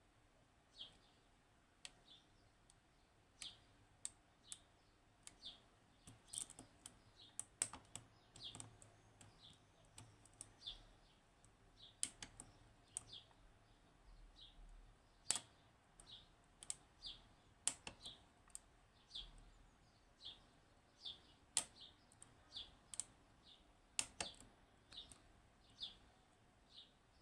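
Faint, irregular metallic clicks and ticks of lock picks working the pins inside a Yanai R 2200M pin-tumbler lock. A short, faint, high chirp repeats about once a second throughout.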